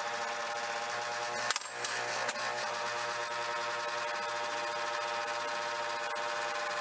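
Motor-driven wire wheel running steadily and scrubbing a screwdriver's metal, with a steady hum under the brushing noise. It grows briefly louder and rougher about a second and a half in.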